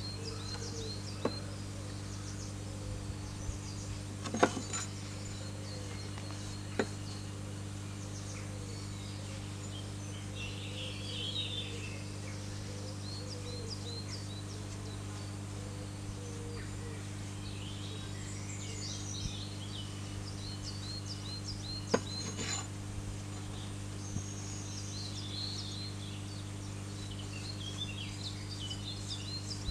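Small birds chirping on and off over a steady low hum, with a few sharp knocks of things handled on a wooden tabletop, the loudest about four seconds in and again about twenty-two seconds in.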